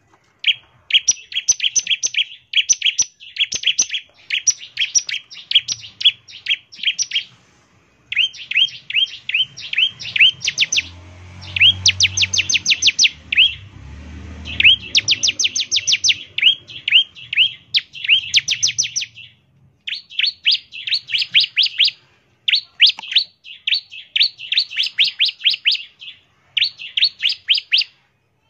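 Bar-winged prinia (ciblek) singing its rapid 'ngebren' song: fast runs of sharp chirps, roughly eight to ten a second, in bursts a few seconds long broken by short pauses. A faint low rumble lies under the song for a few seconds near the middle.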